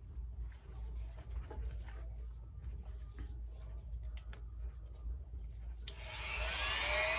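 Small clicks and rubbing from handling parts at a workbench. About six seconds in, a Dremel rotary tool fitted with a wire brush switches on suddenly, its whine rising in pitch as it spins up against the metal.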